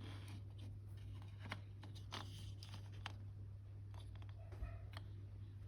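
Faint clicks and light scrapes of small plastic model-kit parts being handled and fitted, with a short squeak about four and a half seconds in, over a steady low hum.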